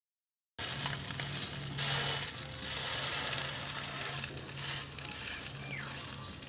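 Eggs sizzling as they fry in a steel wok, with a fork scraping and breaking them up in the pan. The sound starts suddenly about half a second in, over a steady low hum.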